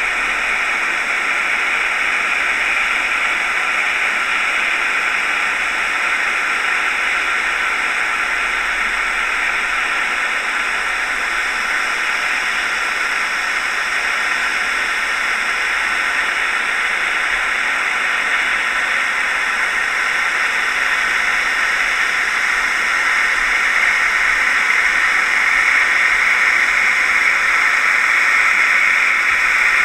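Steady rushing hiss of water streaming past an underwater GoPro mounted on a scallop dredge being towed along the seabed, growing a little louder over the last several seconds.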